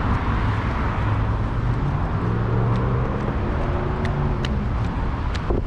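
Road traffic passing through a busy intersection: steady tyre and engine noise, with one vehicle's engine hum swelling through the middle and then fading.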